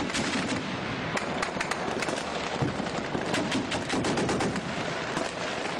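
Sustained gunfire: many shots in quick, irregular succession, as from automatic weapons, over a continuous dense background noise.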